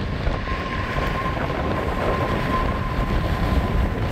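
Jet engines of an Emirates Boeing 777 rolling out after landing, a steady high whine over heavy wind rumbling on the microphone.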